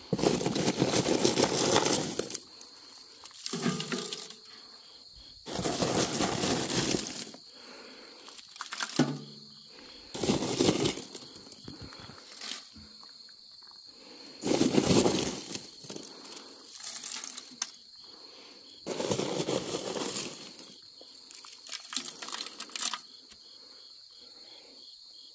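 Lumps of charcoal being handled and laid into a steel stove's firebox over dry pine needles, in repeated bursts of rustling and clattering every few seconds. Insects chirp steadily in the background.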